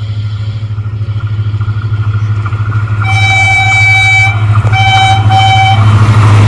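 Horn of a Pakistan Railways HGMU-30 diesel-electric locomotive sounding one long blast about halfway through, then two short blasts, as the train runs up at speed. Under it the locomotive's deep rumble grows steadily louder as it approaches.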